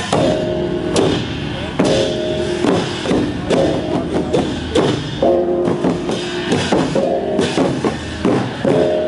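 Lanna puja drum ensemble (klong puja) playing: big barrel drums struck with sticks in a steady beat, with a hanging gong and cymbals ringing over it.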